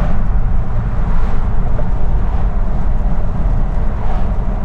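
Steady rumble of a moving car's engine and tyres on the road, heard from inside the cabin.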